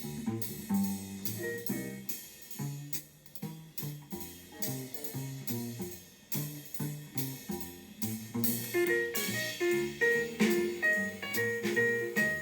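Jazz-style instrumental music with guitar, drums and piano played through a Denon PMA-925R stereo amplifier and speakers, which suffers intermittent sound dropouts and distortion from dirty output-stage relay contacts. The music grows louder and brighter about eight seconds in.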